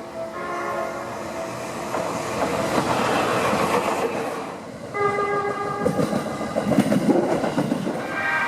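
Seibu Ikebukuro Line electric train sounding its horn: a short chord-like blast about half a second in and a louder one about five seconds in, with the rumble and clatter of the train running between and after the blasts.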